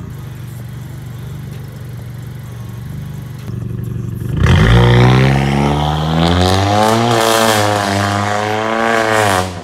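Ktuner-tuned Honda Accord Sport's 1.5-litre turbocharged four-cylinder idling low, then about four seconds in the car pulls away hard, the engine and exhaust note loud and rising in pitch as it accelerates away.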